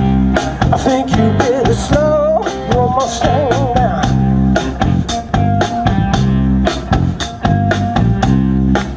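Blues-rock band music: guitar and bass over a steady drum beat, with a lead line bending up and down in pitch about two to four seconds in.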